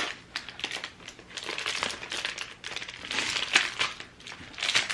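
Paper crinkling and rustling in irregular bursts as a greeting card's envelope is handled and opened.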